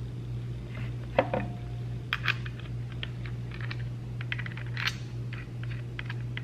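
Small plastic and metal clicks and rattles as parts are handled and a wheel guard is fitted onto a compact Milwaukee cordless cut-off tool, with one sharp metallic clink and a brief ring about a second in. A steady low hum runs underneath.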